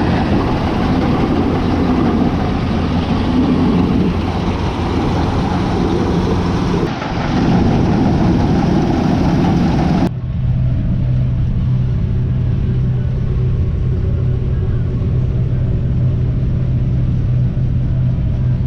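Combine harvester running while cutting wheat, a loud, steady engine and machinery noise. About ten seconds in it cuts abruptly to a steadier, lower engine hum.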